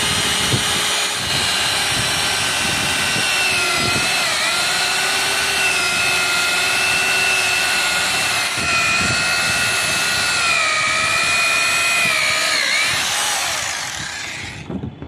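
Corded electric drill with a step drill bit boring a hole through the top of a plastic water tank: a steady motor whine whose pitch dips briefly twice, about four seconds in and again near thirteen seconds. The drill stops about fourteen seconds in.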